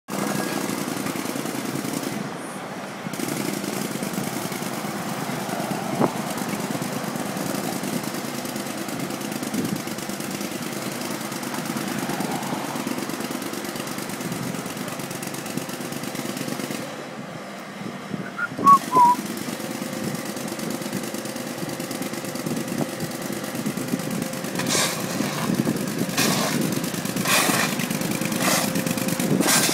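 Steady engine and street traffic running at a roadworks dig, with a few short high squeaks a little past halfway. In the last few seconds come repeated sharp scrapes and knocks of shovels digging into dirt and broken asphalt.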